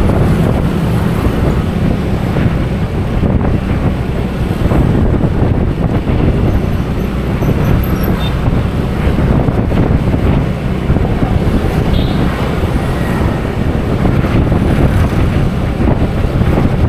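Motorbike riding through town traffic: its engine running with steady wind rumble on the microphone.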